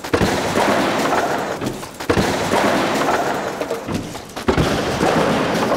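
Wooden demonstration deck collapsing onto a hall floor: a loud crash of timber right at the start, then more heavy thuds of falling lumber about two and four and a half seconds in, over a crowd cheering and applauding.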